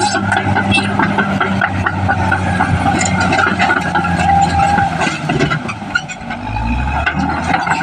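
Caterpillar D6R XL bulldozer's diesel engine running steadily with metallic clanking and rattling. About six seconds in the engine note dips briefly and a deeper low note rises before it settles again.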